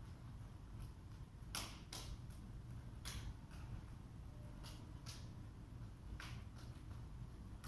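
Irregular short scuffs and squeaks of two people moving barefoot through a partner knife drill, about eight in all and spaced unevenly, over a low steady hum.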